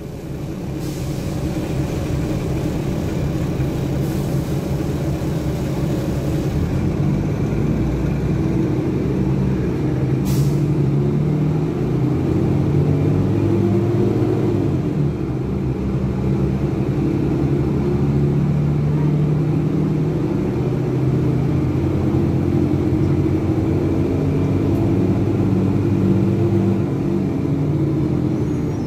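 Cummins ISBe inline-six diesel of a rear-engined Materfer BU1115LE city bus, heard from inside the passenger cabin while under way; the engine note rises and falls several times as the bus drives. A short hiss sounds about ten seconds in.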